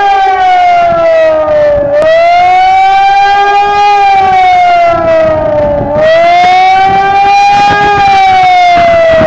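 Civil defense warning siren sounding in a siren test, wailing with a pitch that rises and falls about every four seconds. A second, lower-pitched siren wails along underneath.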